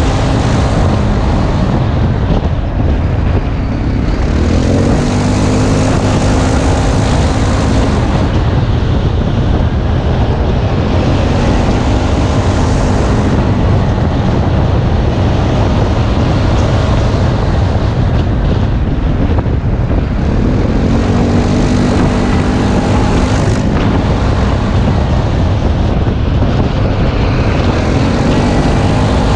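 ATV engine running hard, its pitch climbing and dropping again and again as the throttle is opened and eased, with a steady rushing wind-and-tyre noise underneath.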